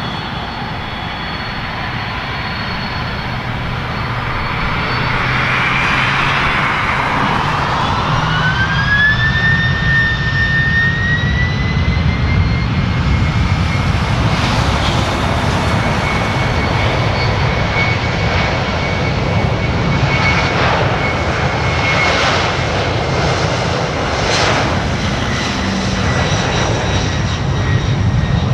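Boeing 767-400ER's twin turbofan engines spooling up to takeoff thrust. A loud rumble builds, and a whine over it rises in pitch for a few seconds and then holds high and steady as the jet rolls down the runway.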